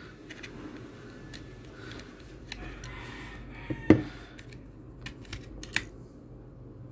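Small clicks and light scrapes of a knife and screwdriver working at a lamp's cover to pry it off, with one sharper click about four seconds in.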